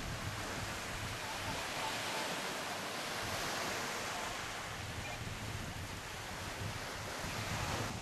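Small waves washing up on a sandy beach, a steady hiss of surf, with wind buffeting the microphone in low rumbles.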